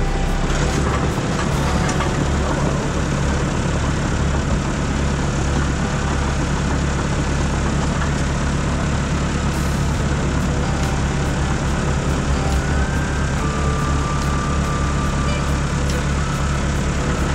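Heavy equipment diesel engine running steadily, a constant low drone with no change in speed.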